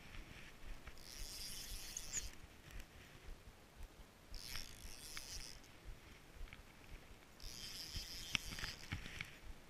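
Spinning fishing reel being cranked in three short spells of about a second each.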